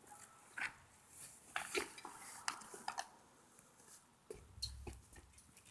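Scattered light clicks and clinks of small hard objects being handled, with a brief low rumble about three-quarters of the way through.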